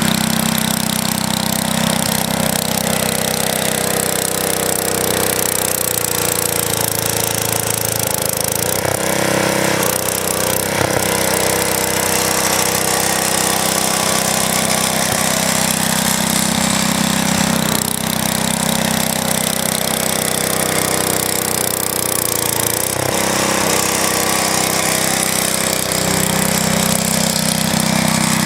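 Vintage Wheel Horse 604 garden tractor's small engine running steadily while plowing snow, its note changing a few times, about a third of the way in and again near two-thirds through.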